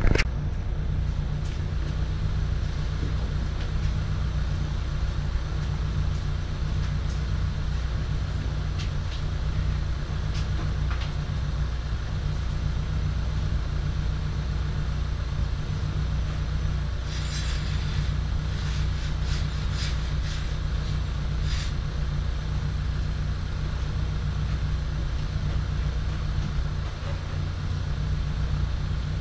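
A steady low mechanical hum, with a short run of sharp clicks and knocks about two-thirds of the way through.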